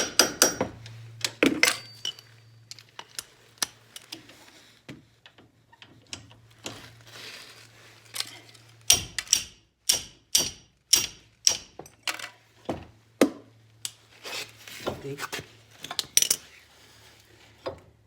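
Hand tools clinking and knocking on metal brake parts during a disc brake job: a string of sharp metallic taps and clanks, with a run of about two knocks a second in the middle.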